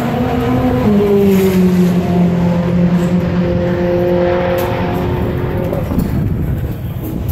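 Race car engine running at a steady pitch in the pit lane. The pitch drops about a second in, then sinks slowly and fades out about six seconds in.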